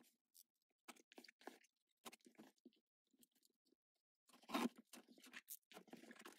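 Faint, scattered rustles and crackles of a shipping box and its packaging being handled and opened, with a louder rustle a little after four seconds and steady crinkling starting near the end.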